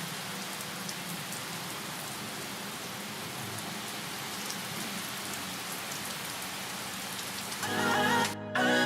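Steady rain falling, an even hiss. Music comes in loudly near the end.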